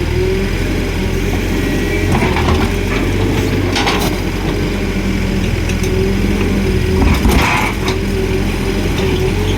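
Cat wheeled excavator's diesel engine running steadily while working, with a wavering whine over the engine note. A few short, noisy bursts break in, the loudest about seven seconds in.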